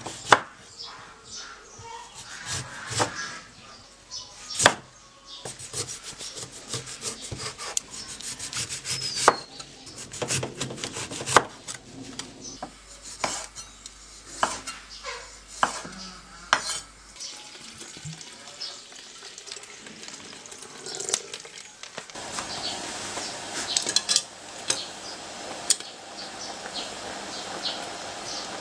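Kitchen utensils clinking, scraping and knocking against pots and dishes as food is handled and stirred, in many separate sharp knocks. A steady hiss comes in toward the end.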